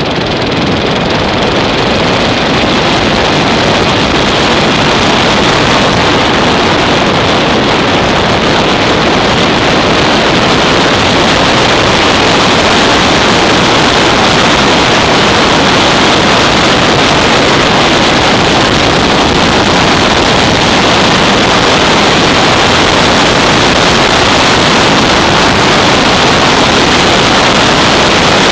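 Loud, steady wind rush on the microphone of a motorcycle riding at road speed, with the Yamaha SR 500's single-cylinder engine running underneath. The noise grows a little louder over the first few seconds, then holds steady.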